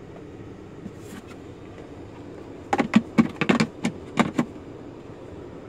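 Plastic centre-console storage tray being slid and handled, giving a quick run of clacks and knocks about three seconds in that lasts under two seconds. A steady low cabin hum runs underneath.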